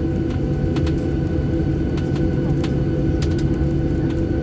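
Airliner cabin noise: the jet engines give a steady hum with high whining tones over a rumble. A few light clicks and rattles come through it.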